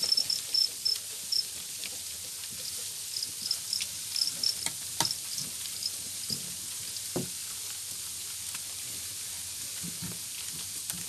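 Farmed field crickets chirping in a crowded rearing pen: runs of short, evenly spaced high chirps in the first second or so and again around the middle. Underneath is a steady hiss with scattered light clicks and taps.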